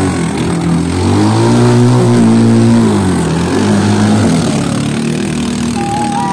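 Outrigger racing boat's engine revving up and then easing back down as the crew push the boat off through the surf, over splashing water. A high steady tone comes in near the end.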